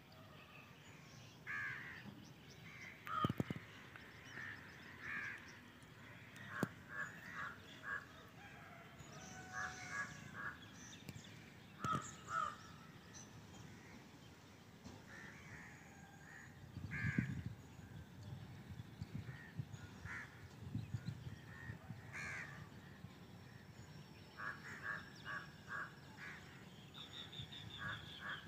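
Crows cawing, short harsh calls in quick runs of two to four, repeated on and off. A faint low rumble comes in about two-thirds of the way through.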